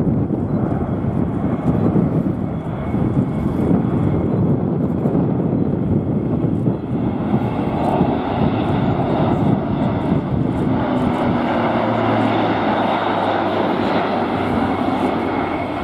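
The Airbus A400M Atlas's four Europrop TP400 turboprops and propellers are running as the airlifter flies a banked pass close overhead: a loud, steady drone that grows fuller partway through, with a low hum joining it near the end.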